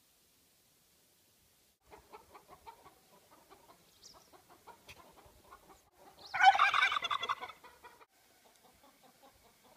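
Domestic turkey and chickens calling and clucking, with one loud, rapid call about six seconds in. The first two seconds are near silent.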